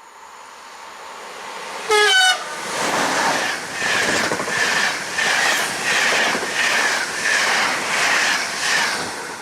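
A train passing close by: it sounds a short horn blast about two seconds in, the loudest moment, then its wheels clatter rhythmically over the rail joints, about one beat every 0.7 seconds, fading near the end.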